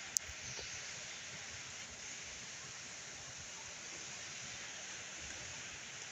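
Steady hiss of room tone in a large hall, with a single sharp click a fraction of a second in.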